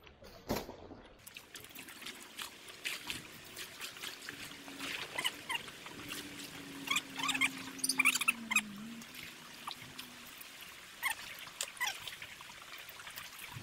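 A dog giving a long low whine that dips in pitch near the end, over scattered splashing and trickling of stream water.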